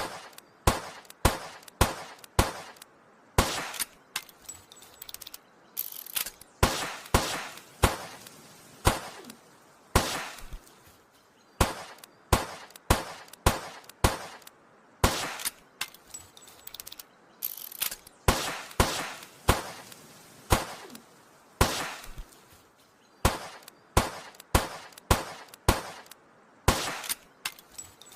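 Old revolver firing shot after shot, in quick runs of several shots broken by short pauses, each shot sharp with a brief ringing tail.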